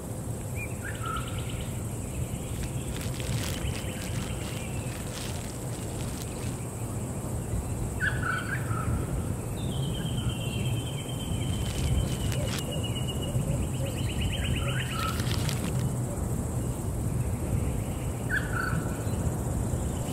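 Nature ambience of birds calling: a short chirp recurs every several seconds, with longer buzzy trills at a higher pitch in between, over a steady low rushing background and a few light clicks.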